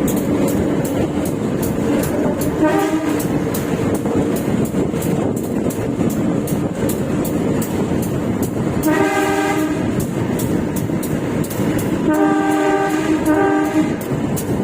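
Diesel locomotive horn of a local passenger train sounding three times, heard from inside a carriage: a short blast about two and a half seconds in, a blast of about a second around nine seconds in, and a longer two-part blast near the end. Under it runs the steady rumble of the carriage on the rails with a regular clicking. The horn is the driver's warning at unguarded and broken-gate level crossings.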